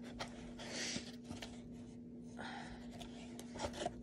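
Paper folding fan being waved and handled: soft rustling swishes of its pleated paper, with a few light clicks from its ribs. A faint steady hum runs underneath.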